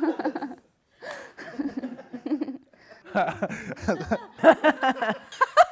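People laughing in bursts, with short breaks between them.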